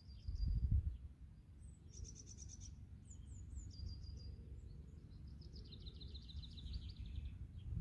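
Small songbirds calling: quick high chirps in short runs, a fast trill about two seconds in and a longer trill near the end, over a steady low rumble that is loudest just after the start.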